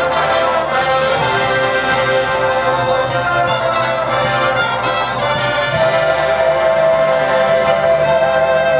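Marching band playing: the brass section sounds loud sustained chords over percussion strikes, then settles onto one long held chord about six seconds in.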